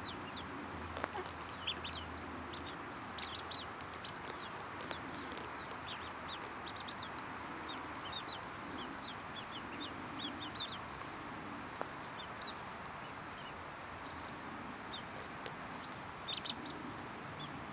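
A brood of Rouen ducklings peeping: many short, high cheeps come in scattered runs throughout, over a steady background hiss.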